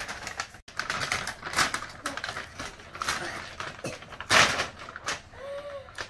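Paper gift bags rustling and crinkling as they are carried, set down and opened, in irregular crackly bursts with a louder rustle about four seconds in. A short high tone sounds near the end.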